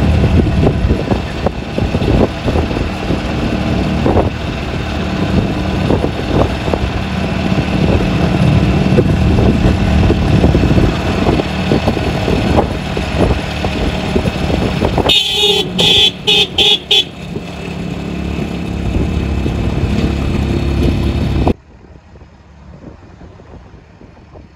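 Road noise and engine of a moving vehicle, heard from inside it. About fifteen seconds in, a vehicle horn honks in several short blasts. The loud road noise cuts off suddenly near the end, leaving a much quieter background.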